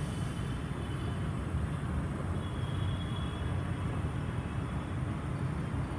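LG air conditioner outdoor unit running, its fan giving a steady low whirr without any change in speed.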